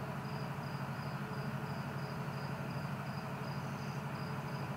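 A cricket chirping steadily, about three short high-pitched chirps a second, over a low steady hum.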